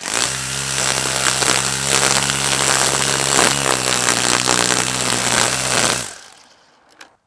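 Cordless battery-powered string trimmer running steadily at full speed for about six seconds, with a steady hum under the whirring line, then spinning down and fading out.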